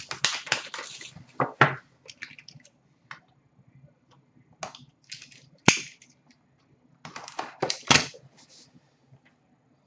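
Hands opening a cardboard hockey card box: rustling and crackling of packaging in short spells, with one sharp crack about six seconds in.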